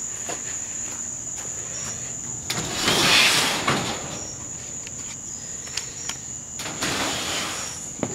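Crickets trilling steadily and high-pitched throughout, with a loud scraping rush about three seconds in as a shed door is opened, a softer rush shortly before the end, and a few light knocks.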